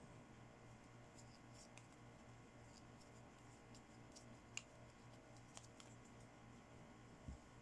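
Faint, scattered clicks and light taps of small plastic toy accessories being handled, the sharpest about halfway through, over a low steady hum.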